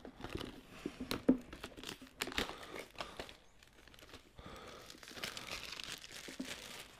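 Gimbal box packaging being handled: light knocks and clicks for the first few seconds, then a steady crinkling rustle of wrapping from about halfway through.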